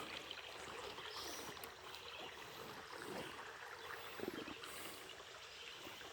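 Faint trickling of a shallow creek's water, with a small splash or step about four seconds in.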